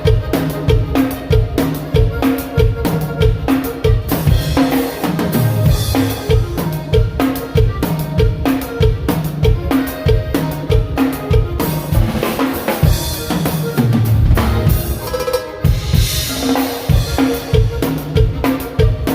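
Drum kit played in a steady groove, bass drum and snare with rimshots, with cymbal crashes about four seconds in and again about fifteen seconds in.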